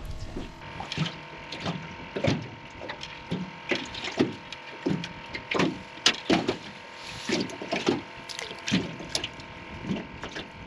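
Small waves slapping against the aluminium hull of a jon boat: irregular hollow knocks, about two a second, each ringing briefly.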